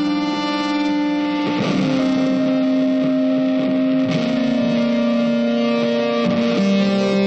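Background music led by an electric guitar, held notes changing every second or two, with a few strummed chords.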